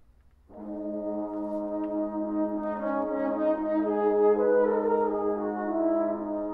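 A quintet of French horns enters together after a brief silence, about half a second in. A low held note sounds under moving upper parts, and the ensemble grows louder.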